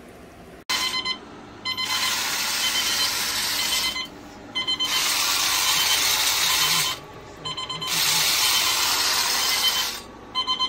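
Extra-loud alarm clock and its bed shaker going off. Runs of short beeps alternate three times with loud, harsh rattling stretches of about two seconds.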